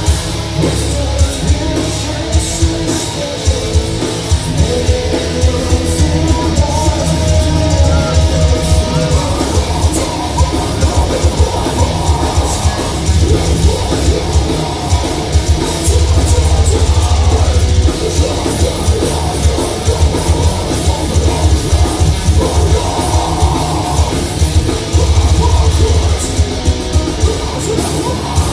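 Live heavy metal band playing at full volume: heavily distorted electric guitars, a drum kit with rapid kick-drum hits, and a lead vocal sung over them.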